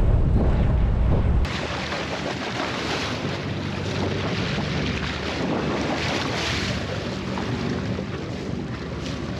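Wind rumbling on the microphone over the boat's running noise, then, about a second and a half in, a sudden change to steady splashing and rushing water as a hooked marlin thrashes at the side of the boat.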